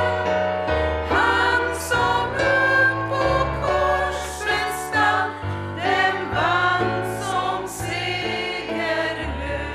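A small group of women singing a hymn to Roland digital piano accompaniment, ending on a held chord that dies away near the end.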